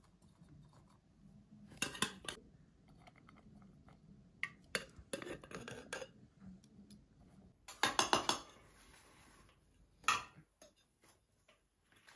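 Dishes and cutlery clinking and clattering in a few separate bursts. The busiest, loudest run of strikes comes about eight seconds in.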